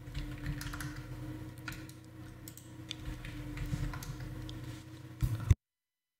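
Scattered computer keyboard and mouse clicks over a steady low electrical hum. A louder knock comes near the end, then the sound cuts off suddenly into dead silence.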